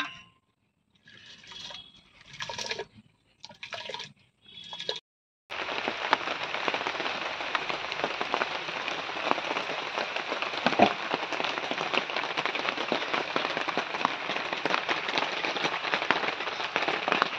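Steady rain falling: an even hiss with scattered drop clicks that starts suddenly about five seconds in, after a few brief, indistinct sounds.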